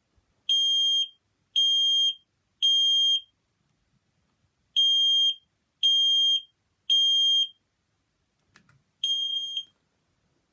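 FireAngel SB1 smoke alarm sounding on test: loud, high-pitched beeps in the standard temporal-three pattern, two groups of three. A knock follows, then one more beep that stops short.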